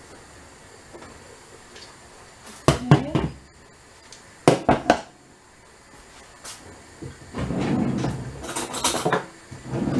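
Kitchen clatter from a stainless-steel pot lid being lifted and handled at the stove: a few sharp metal knocks a few seconds in, then a longer stretch of clattering and handling noise near the end.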